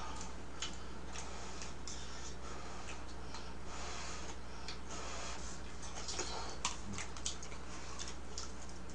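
Soft, irregular clicks and smacks of someone eating mung bean porridge with utensils, over a steady low electrical hum.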